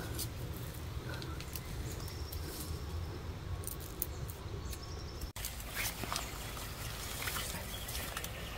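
Faint outdoor ambience: a low steady rumble with scattered soft rustles and clicks.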